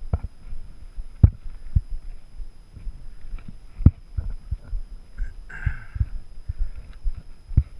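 Irregular low thuds of a hiker's footsteps on a dirt trail, picked up through a body-worn GoPro camera, with a brief brush of ferns and grass about five and a half seconds in.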